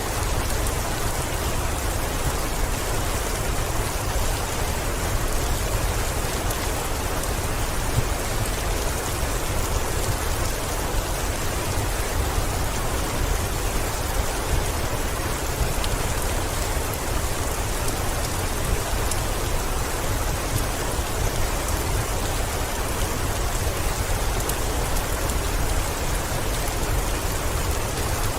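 Heavy rain falling steadily against a window, an even, unbroken wash of rain noise with a steady low rumble underneath.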